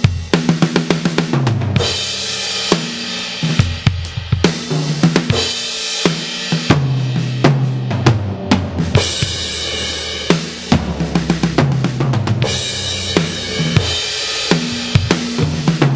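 Sampled DW drum kit with a heavy rock mix preset, played from a 2Box electronic drum module with BFD2 samples. A driving beat of kick and snare runs under several stretches of crash cymbal wash, broken up by tom fills.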